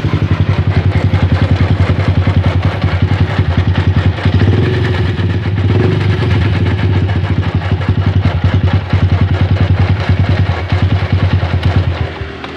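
Yamaha Jupiter MX's single-cylinder four-stroke engine idling with a rough, raspy noise, not a ticking but like something rubbing. The mechanic suspects a worn bearing, most likely the radiator water-pump bearing. The engine stops near the end.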